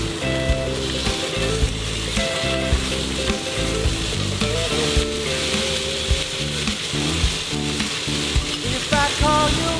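Steaks sizzling as they sear in a hot cast-iron skillet, a steady hissing fry, under background music with a moving bass line and melody.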